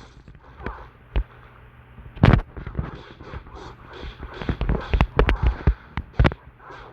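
Irregular sharp thumps and knocks: a single loud one about two seconds in, then a quick run of them in the second half.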